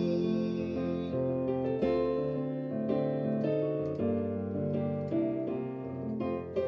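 Electronic keyboard in a piano voice playing an instrumental interlude between verses of a hymn: sustained chords changing about once a second, with no singing.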